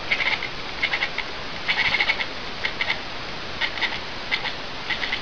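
An animal making short groups of rapid clicking, chattering calls, repeating irregularly about every half second to a second, over a steady hiss.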